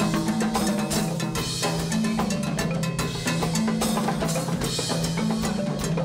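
Live Latin percussion ensemble playing a fast groove: drum kit with kick drum, hand drums and hand percussion struck in dense, even rhythm over a repeating low melodic figure.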